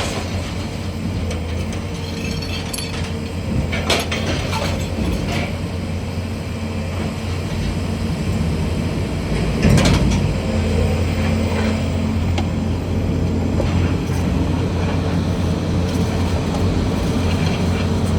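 Steady low rumble of an idling engine, with a few sharp knocks or clanks, one near the start, a couple around three to four seconds in and another about ten seconds in.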